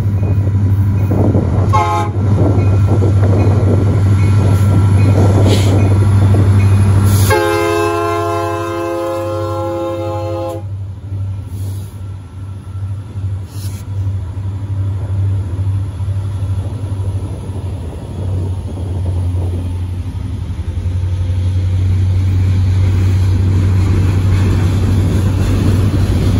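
Union Pacific freight train passing close by: the diesel locomotives' engines run with a steady low hum, and about seven seconds in the horn sounds one chord blast of about three seconds. The freight cars then roll past with rhythmic wheel clatter.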